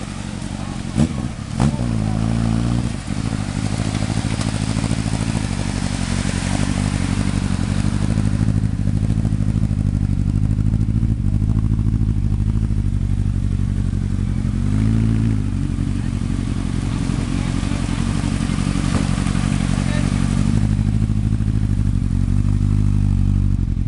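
Turbocharged Suzuki Hayabusa 1300 inline-four engine in a Lotus Super 7-style car idling steadily, blipped up and back down twice, shortly after the start and about midway. Two sharp clicks sound about a second in.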